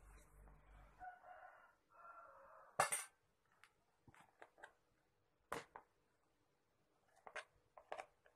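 Chicken meatball paste being scooped out of a plastic food-chopper bowl: a handful of sharp clicks and knocks against the plastic, the loudest about three seconds in. A faint pitched sound comes before them, about a second in.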